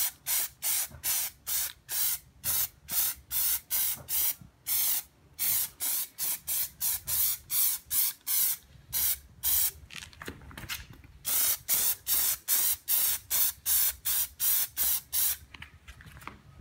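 Aerosol can of Plasti Dip rubber coating spraying in many short hissing bursts, about two a second, with a brief pause a little after ten seconds in, as a thin first coat goes on.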